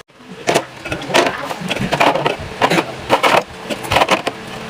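Clatter of plastic containers and food packaging being handled and set down while a refrigerator is restocked: many quick, irregular clicks and knocks.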